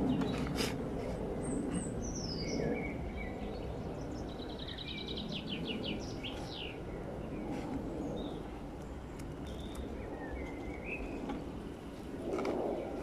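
Songbirds chirping and singing, with one fast trill of quick repeated notes about four seconds in, over a steady low background rumble. A short rustle near the end.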